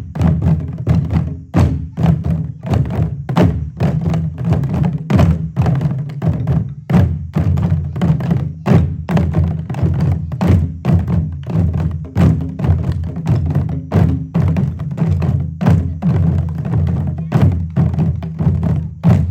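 A group of drums played together in a drumming circle, beating out a steady, dense rhythm of many strokes without a break.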